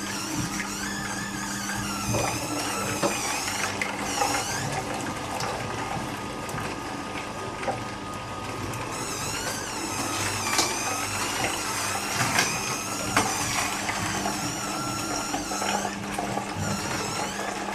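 Kuvings slow cold-press juicer running, its auger crushing fruit and vegetables: a low motor hum with repeated high squeaks, crunching and scattered clicks as produce is fed in and pressed.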